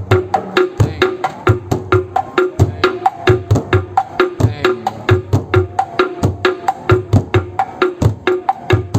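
Bedug, the large Indonesian mosque drum, beaten in a fast, steady rhythm of several strikes a second, deep booming hits mixed with sharp wooden knocks, as played for takbiran.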